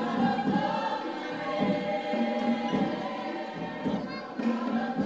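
Many voices singing together, with a steady beat underneath about twice a second.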